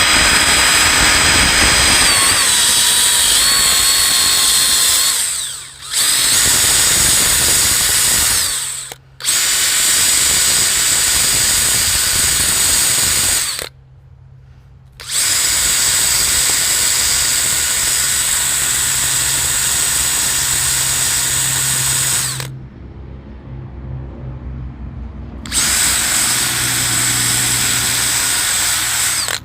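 Handheld electric power tool spinning up in five runs with short stops between, used to clean carbon off a small-engine spark plug; its whine dips briefly under load early on.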